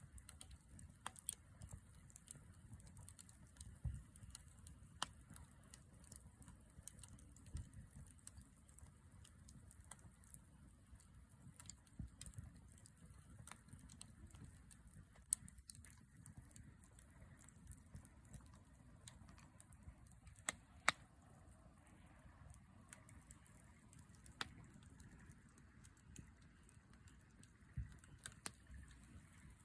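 Wood fire crackling: irregular sharp snaps and pops, a few standing out louder, over a faint low rush.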